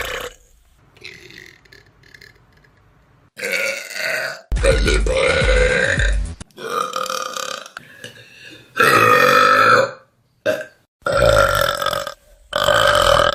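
A string of loud human burps, one after another, each cut off abruptly before the next; one in the middle is long, about two seconds, with a deep rumble.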